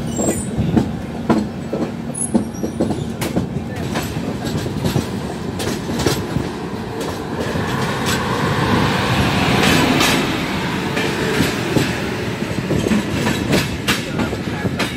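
Passenger train running, heard at an open coach door, with the wheels clattering over rail joints in a stream of sharp clicks. From about eight seconds in, a louder wash of noise builds and fades over a few seconds as another train passes on the adjacent track.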